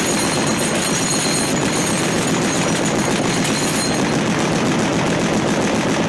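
Anti-aircraft machine gun firing in long, continuous rapid bursts.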